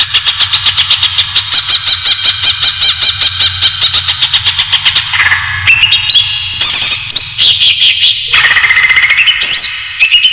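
Green leafbird (cucak ijo) song played as a bird-trapping lure call. A rapid run of repeated notes comes first, then from about five seconds in a series of clear whistles rising in steps, broken by short pauses.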